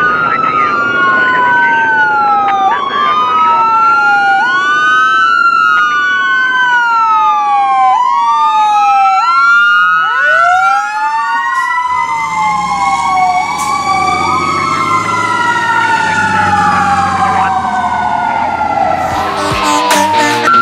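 Fire engine siren wailing, sweeping up and down about every two seconds. About ten seconds in, a second siren rises in one long sweep and then slowly falls away. The engine's rumble comes up in the second half as the truck passes.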